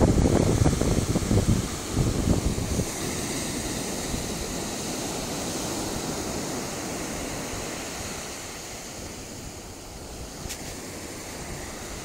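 Ocean surf washing steadily on the beach. A louder low rumble for the first two to three seconds drops away, leaving an even wash that eases slightly near the end.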